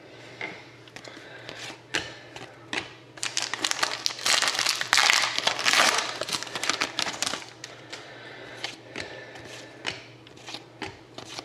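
Trading-card pack wrapper being torn open and crinkled, with a dense burst of crinkling lasting about four seconds in the middle and scattered clicks and rustles of handling around it.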